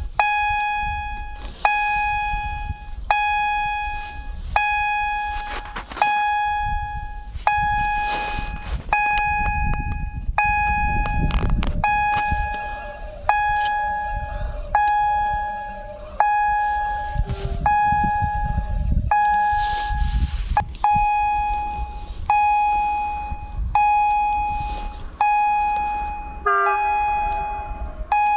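Railway level crossing warning bell ringing, one sharp ringing stroke that fades before the next, about four strokes every three seconds. A low rumble swells underneath at times.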